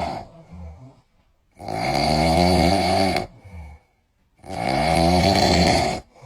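A man snoring loudly: two long snores of about a second and a half each, a little over a second apart.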